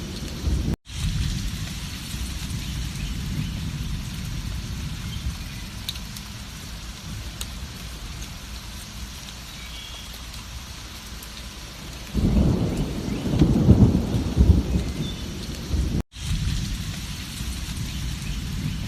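Steady heavy rain with thunder: a loud low rumble fades out in the first second, and another swells about twelve seconds in and lasts about four seconds. The sound cuts out for an instant twice, about a second in and again near the end.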